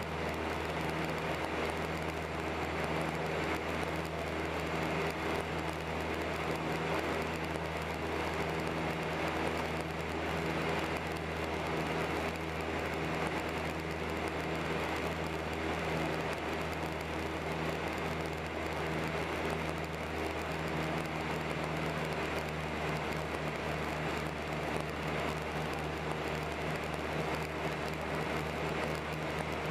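Cabin noise of a twin-engine Piper PA-23 Geronimo in flight: the steady drone of its two piston engines and propellers, heard from inside the cabin.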